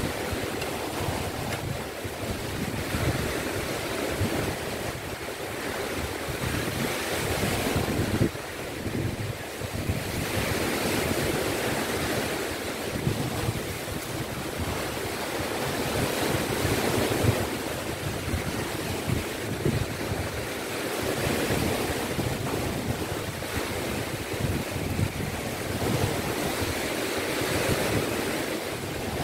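Sea surf washing in, swelling and easing every few seconds, with wind buffeting the microphone.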